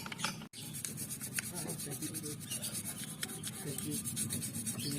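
Metal polish being rubbed by hand onto a motorcycle engine casing: a steady scrubbing hiss of many short strokes, with a brief break in the sound about half a second in.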